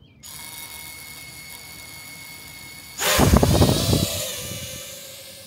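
FPV quadcopter's MEPS SZ2408 2500KV brushless motors spinning at idle with a steady thin whine; about three seconds in the throttle is punched and the drone lifts off with a sudden loud buzzing whine that rises in pitch, then fades as it flies away.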